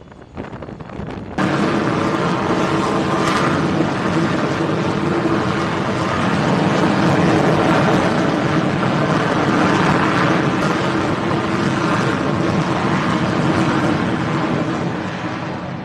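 The Pratt & Whitney F100 turbofan of an X-47B unmanned flying-wing jet running at launch power on the carrier's catapult: a loud, steady jet roar that starts abruptly about a second and a half in. It fades a little near the end as the aircraft is catapulted away.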